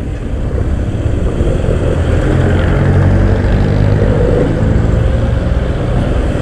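Motorcycle on a stock muffler riding at speed, its engine running under a steady rumble of wind on the microphone, getting a little louder a couple of seconds in.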